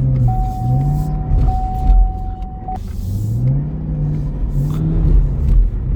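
Supercharged 6.2-litre V8 of a 2018 Chevrolet Camaro ZL1 revving up and easing off twice with traction control switched off on snow. A steady high tone sounds for about two and a half seconds during the first rev.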